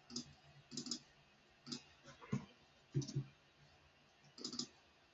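Computer keyboard and mouse clicking: about six short clusters of keystrokes and clicks, spaced irregularly.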